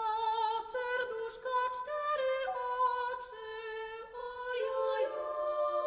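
A woman singing unaccompanied, a melody moving from note to note with vibrato; about five seconds in, other voices join in harmony like a choir.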